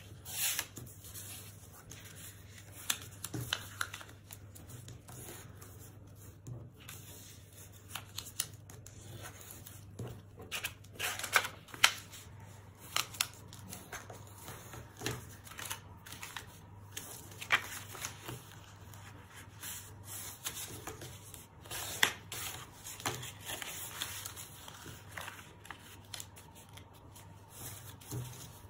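Blue cardstock being folded and creased by hand along its lines: irregular crackling, scraping and tapping of stiff card as folds are bent and pressed flat. A faint steady low hum lies underneath.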